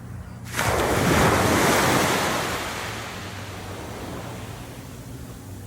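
Surf washing in: a sudden rush of noise about half a second in that swells and then fades into a steady hiss, over a low steady hum.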